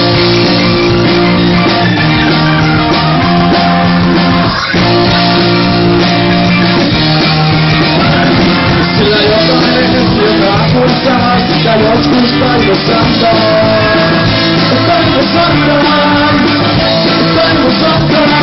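Rock band playing live, with guitar chords and a singing voice.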